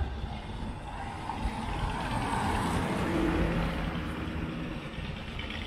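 Road vehicle noise: a motor vehicle passing on the street, growing louder to a peak a little past the middle and then easing off, over a steady low rumble.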